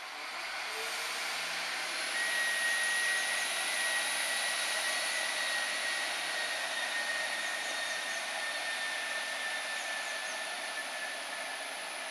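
Irish Rail 22000 class three-car diesel multiple unit pulling away under power, its diesel engine loud. The sound builds over the first two seconds, and a steady high whine sets in about two seconds in and holds, dipping slightly in pitch toward the end.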